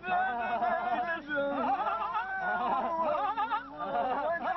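Several voices chanting together in drawn-out tones whose pitch wavers and bends, overlapping one another.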